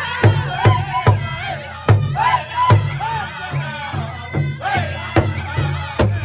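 Powwow drum group singing in high voices over a large shared drum, the men striking it together with beaters in a steady beat of about two and a half strikes a second. Some strikes stand out louder than the rest, a cluster early on and again near the end.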